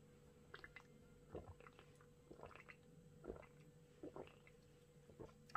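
Near silence, with a few faint, short taps and clicks about a second apart.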